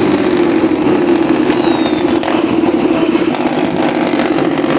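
A truck's engine running under way, heard from the cab with a steady pulsing drone. A thin high whine slides down in pitch over the first couple of seconds.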